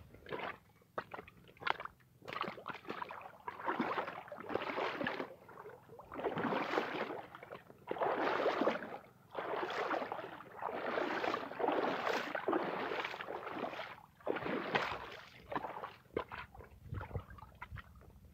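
Swamp water sloshing and gurgling against a mud bank in irregular surges of about a second each, as the water rises with the incoming tide.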